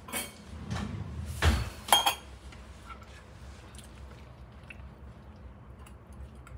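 A few clinks and knocks of a stainless-steel container and utensils against kitchenware as pesto is scooped out of a food processor, the loudest about a second and a half and two seconds in, one with a brief metallic ring; then only faint small taps.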